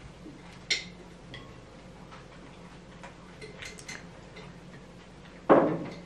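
Small clicks and taps of plate and tableware as food is laid onto a sandwich at a table, with a louder thump near the end.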